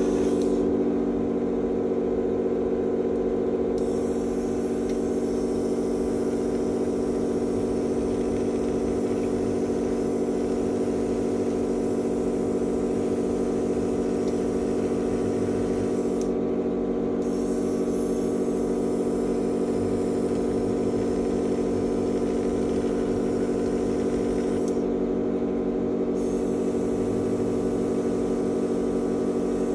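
Steady electrical hum with a buzzing stack of overtones that holds level throughout, the kind given off by mains-powered equipment.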